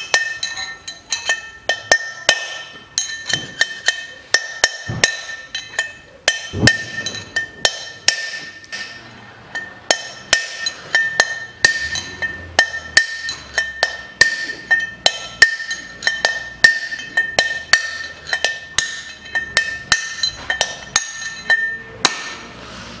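Hammer driving a steel drift against a wheel-bearing outer race in a Land Rover Defender's front hub, with the brake disc attached, to knock the old race out. The blows come steadily, about two a second, and each one leaves the steel hub and disc ringing.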